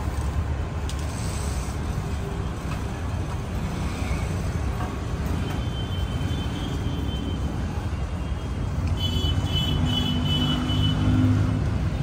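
Steady rumble of road traffic, with faint high-pitched tones partway through and again near the end, growing a little louder near the end.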